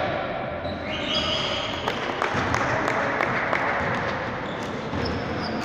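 A basketball bouncing on a hardwood gym floor, with sneaker squeaks and the echoing noise of a big hall.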